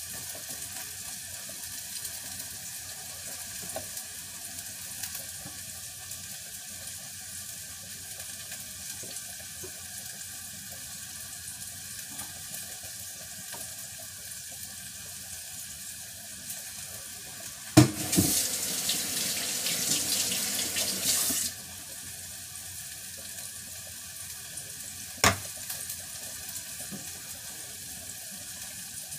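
Kitchen tap running hard into the sink for about three and a half seconds past the middle, over a steady soft sizzle of food frying. A sharp clack follows a few seconds later.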